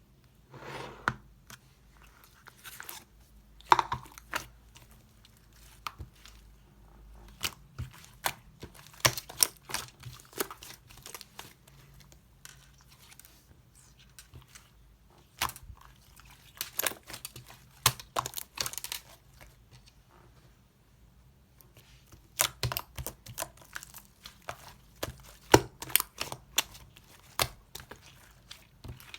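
Bursts of sharp crackling and clicking handling noise in irregular clusters, with quiet gaps between.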